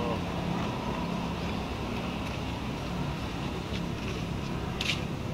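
Steady outdoor background rumble with a low hum, with a few faint clicks and one brief crackle about five seconds in, from a macaque tearing the husk off an ear of corn.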